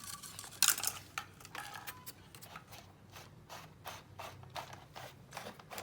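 Irregular scraping and clicking of electrical wiring being handled and fed through a drilled hole in a caravan panel, with one sharper knock a little over half a second in.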